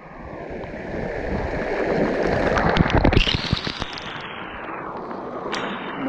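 Small waterfall's falling water splashing into a creek pool and onto the camera close up: a dense rushing splash with many small drops striking, building over the first two to three seconds and then holding steady.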